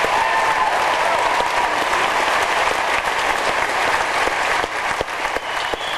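A hall audience applauding, a dense steady clapping that thins slightly near the end.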